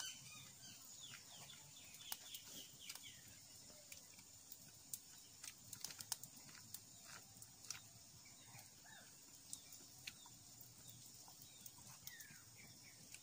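Faint, irregular clicks and smacks of biting and chewing grilled corn on the cob, with a few short high chirps near the start and again near the end.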